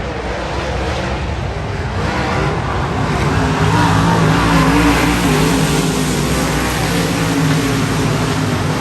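Dirt-track modified race car engines running at speed on the track. The sound builds to its loudest about halfway through, then eases slightly.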